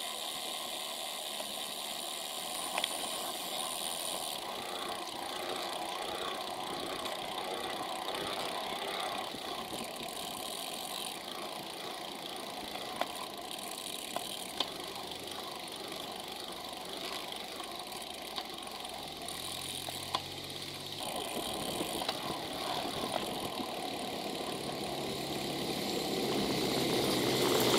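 Steady road and wind hiss from a moving bicycle, picked up by a bike-mounted camera, with a few sharp rattles. Near the end a large coach's engine grows louder as it passes close by.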